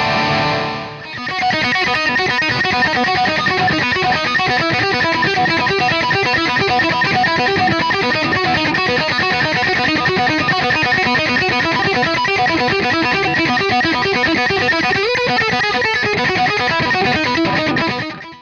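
Epiphone SG Standard electric guitar played through an amplifier: a chord rings and fades in the first second, then a steady run of fast picked notes continues until the sound fades out at the very end.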